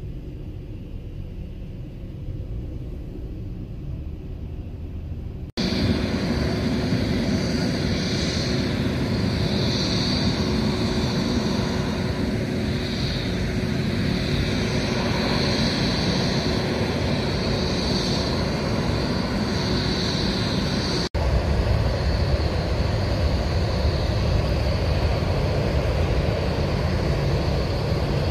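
Airport apron noise from jet airliners' engines: first a quieter low rumble, then after a sudden cut a louder steady jet noise with a high whine that swells and fades several times, then after another cut the steady rumble of a Boeing 737 taxiing.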